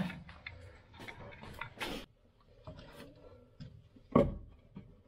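Scattered handling clicks and light knocks as a small object is fitted against a wooden beam, with a sharp click about two seconds in and a heavier knock about four seconds in.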